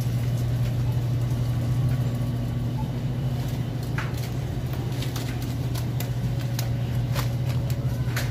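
Steady low hum of a supermarket's refrigerated display cases and ventilation, with a few light clicks about halfway through and again near the end.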